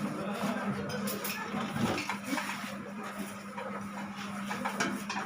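Indistinct chatter of a group of people at a meal, with a few sharp clinks of dishes and cutlery over a steady low hum.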